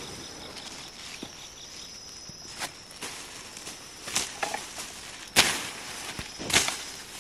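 Insects, crickets among them, chirping steadily in a high thin tone, with four short sharp rustles or crinkles over it, the loudest about five and a half seconds in.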